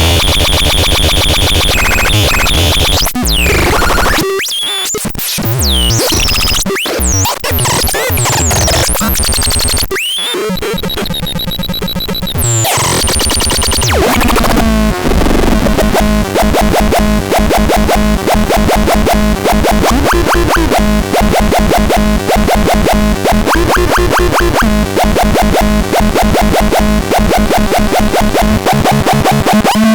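Synthesizer playing harsh, noisy electronic sounds: for the first half, chaotic sweeping and gliding tones with brief dropouts, then from about halfway a dense, fast, evenly pulsing buzz held on steady pitches.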